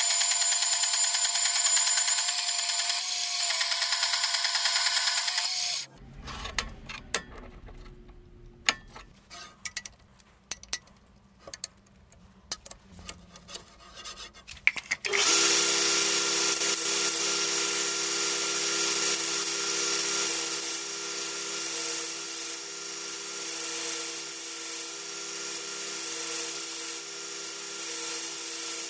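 Power tools working on steel. One machine runs with a loud high hiss and stops about six seconds in. A stretch of scattered clicks and taps follows, and from about halfway a second, lower-pitched machine runs steadily.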